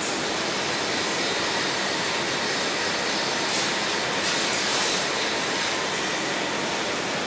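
Steady rushing roar of fish-processing plant machinery, with a brief brighter hiss near the middle as a rack of fish is moved along the metal line.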